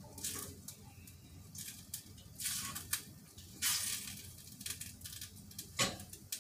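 Water splashing at a kitchen sink in short, irregular bursts, with a few sharp clicks of things being handled.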